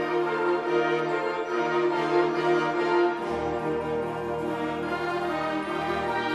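A concert band of woodwinds and brass playing sustained chords, with a low bass note coming in about halfway through.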